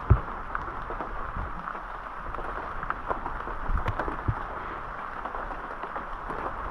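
Steady rain hiss, with scattered drips and a few light knocks.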